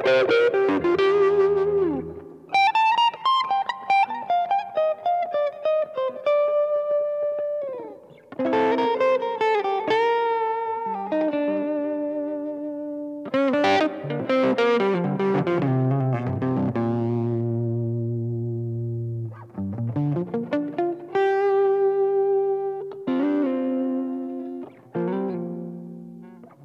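Solo electric guitar played in phrases of picked notes, some held long and ringing and some sliding in pitch, with short breaks between phrases.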